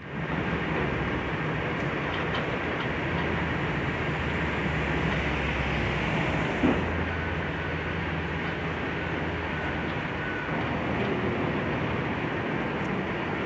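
Diesel engine of a demolition excavator running steadily, its note shifting a few times, with one short knock about halfway through.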